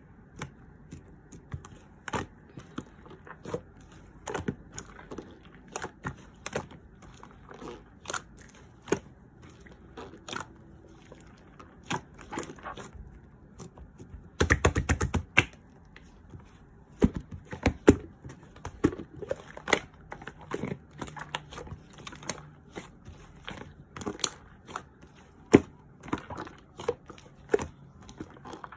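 Irregular taps and clicks of small objects being handled, with some crinkling, and a fast cluster of clicks about fifteen seconds in.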